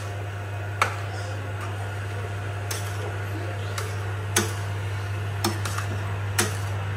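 A spoon knocking and scraping against a cooking pot about every second while grated pumpkin is stirred in ghee, over a steady low hum.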